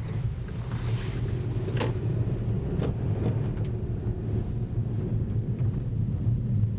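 Inside the cabin of a 2010 VW Jetta 2.0T driving on snow: steady low drone of its turbocharged four-cylinder engine mixed with tire noise from Bridgestone Blizzak snow tires, with a few faint knocks.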